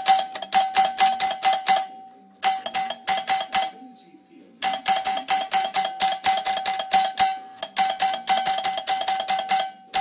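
Makeshift doorbell's bell ringing in rapid strikes, about five or six a second, over one steady ringing tone. The strikes come in four bursts with short pauses between them. The bell is taped around so that it does not ring loudly.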